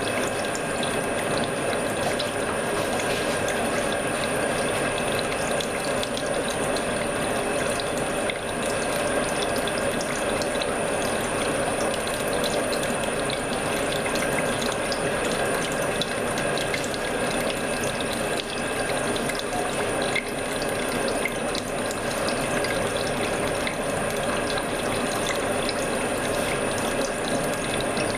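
CNC milling machine hobbing a module-1 helical gear: the hob cuts steadily with a dense, continuous chattering grind over a steady high whine.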